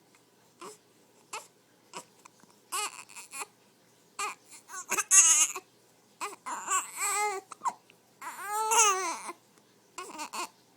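A baby with the hiccups: three short hiccup catches in the first two seconds, then a string of whiny cries and babbling calls. The longest call, near the end, rises and falls in pitch.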